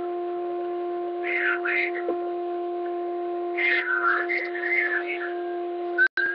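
Radio receiver audio: a steady humming carrier tone with overtones, a jamming signal sitting on the frequency, with bursts of faint, garbled sideband voice over it. The audio cuts out for an instant near the end as the antenna switch is turned.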